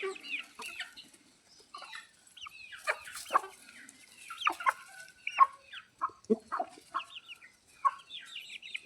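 Parrot Beak Aseel chickens clucking and calling, a steady scatter of many short calls from several birds.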